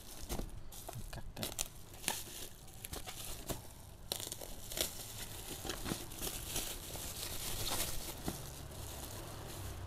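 Plastic bubble wrap crinkling and tearing as it is slit open with a small blade and pulled apart by hand, with irregular crackles throughout.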